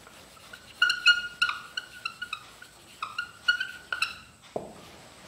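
Dry-erase marker squeaking on a whiteboard in a quick series of short, high-pitched strokes as a word is written, followed by a light tap near the end.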